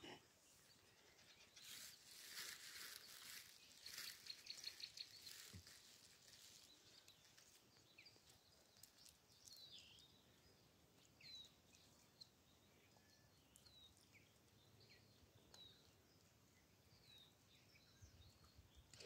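Quiet outdoor ambience with faint, short high-pitched bird chirps scattered through it, after a few seconds of faint high hiss with rapid ticking near the start.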